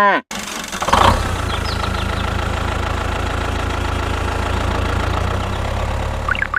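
Small tractor engine starting to run shortly after the start, with a brief louder burst about a second in, then running steadily at idle.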